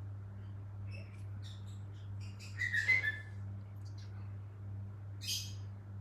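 A pet cockatiel giving short, dog-like chirps: a few soft ones, a louder burst about three seconds in, and another brief call near the end, over a steady low hum.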